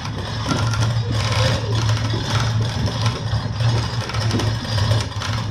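A motor-driven machine running steadily, with a low hum under a noisy hiss; it cuts off right at the end.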